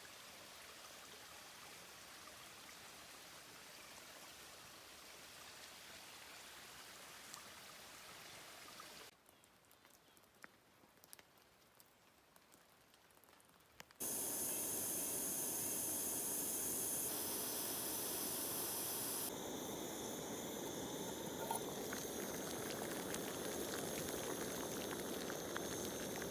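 Running water heard in separate shots that cut abruptly: a steady, even rush, then a quieter stretch with scattered faint drips, then a much louder rush of water for the second half.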